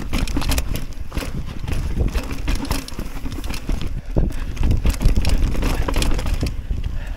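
Mountain bike riding over a rocky trail: tyres on stone and gravel, with a steady run of knocks and rattles from the bike over bumps and a constant low rumble.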